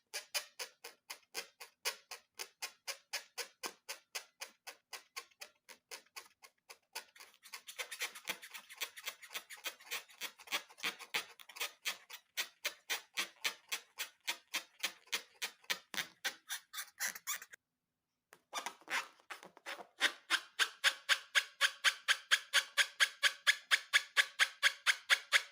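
Background music with a fast, steady ticking beat, about three or four clicks a second. It cuts out for about a second a little past the middle, then comes back louder.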